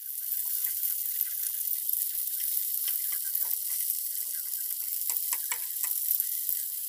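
Stuffed eggplants frying in oil in a nonstick pan: a steady high sizzle. A slotted spatula clicks and scrapes against the pan a number of times from about three seconds in as the eggplants are turned.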